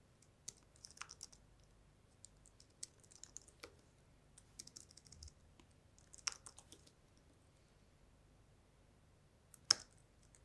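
Typing on a slim low-profile computer keyboard: soft, irregular key clicks in short runs over the first seven seconds or so, then a single louder keystroke near the end.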